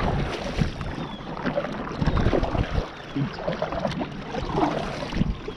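Kayak moving across the water, with irregular splashing and knocks against the hull.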